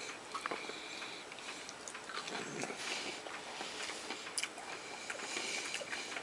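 A person chewing baked breaded popcorn shrimp close to the microphone: faint, irregular small crunches and mouth clicks.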